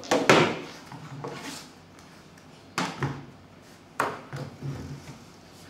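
A few knocks and clatters of things being handled on a wooden tabletop: a loud one at the start, then more about three and four seconds in.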